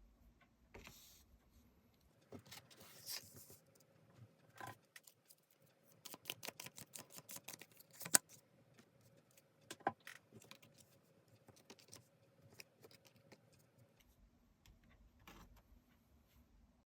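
Tarot cards being handled: soft rustling, then a quick run of sharp clicks and snaps of the cards, a few more scattered after.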